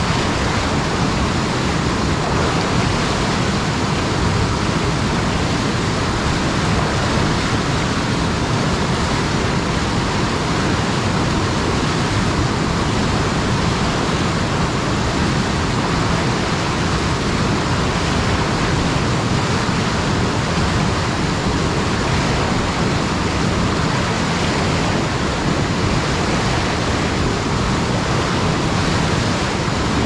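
Muddy river running through whitewater rapids: a loud, steady rush of churning water.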